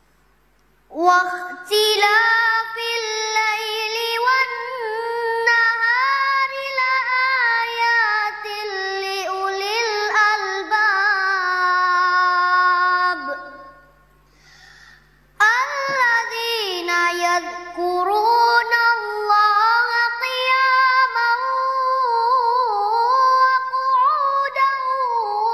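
A child's high voice singing unaccompanied in long, ornamented phrases that slide and bend in pitch. It pauses briefly about halfway through, then carries on.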